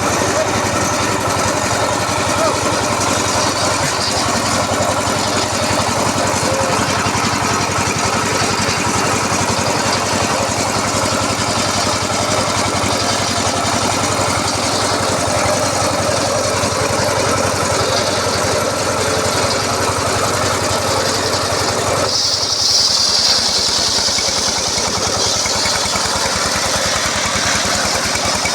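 Engine-powered circular saw running steadily, with an even engine beat under it. About two-thirds of the way through, the low hum drops and a high hiss comes in.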